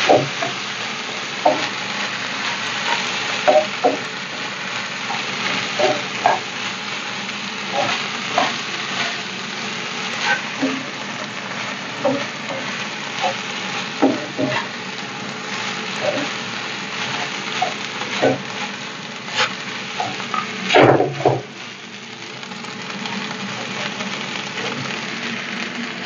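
Rice and black beans sizzling as they are sautéed in a nonstick frying pan, stirred and scraped with a wooden spoon. The spoon knocks against the pan about once a second, with a louder pair of knocks about 21 seconds in.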